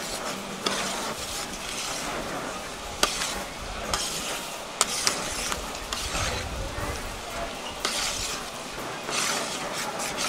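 Slotted metal spatula stirring and scraping rice through broth in a large steel paella pan, over a steady sizzle. There are a few sharp clinks of metal on the pan, the loudest about 3 and 5 seconds in.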